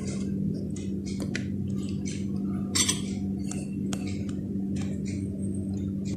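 A metal spoon scraping and clinking on a ceramic plate as soya-chunk filling is scooped out, in a series of short irregular clicks, loudest near the middle. A steady low hum runs underneath.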